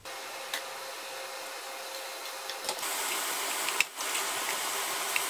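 Minced beef with chili and parsley sizzling in a hot frying pan: a steady hiss that gets louder about three seconds in, with a few faint clicks.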